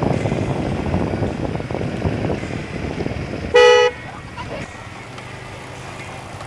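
A car horn gives one short, loud honk about three and a half seconds in, over background noise with voices.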